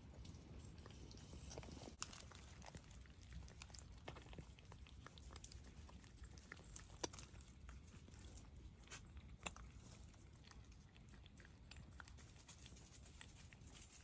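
Red foxes chewing and crunching their food: faint, irregular crunches and clicks, with a few sharper ones.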